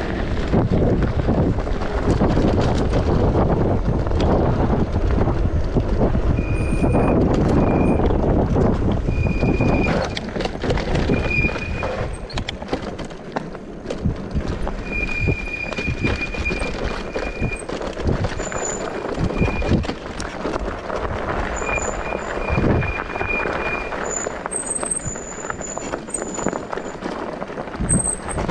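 E-bike riding off road over a rough dirt trail: steady tyre rumble with frequent knocks from bumps, louder and rougher for the first ten seconds. Brief high-pitched whines come and go through the middle.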